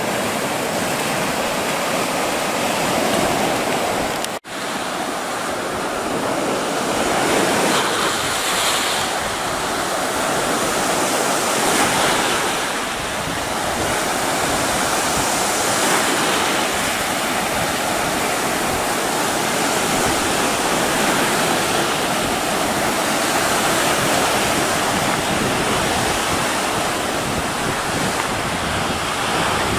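Small Sea of Azov waves breaking and washing up a shell-and-pebble beach: a steady rush of surf that swells every few seconds. The sound breaks off for an instant about four seconds in.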